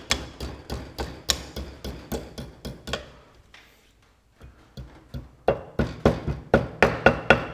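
Light, quick metal-on-metal taps, about three or four a second, with a short pause in the middle and louder taps after it: a hand tool knocking the leg of a steel split pin over against a castellated wheel-bearing nut.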